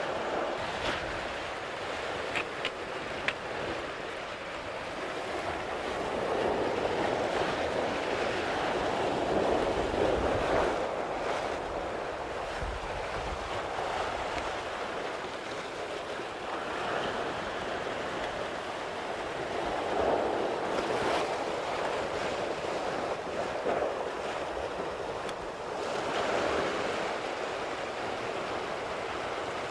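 Sea waves washing against a rocky shore, surging and falling back every several seconds.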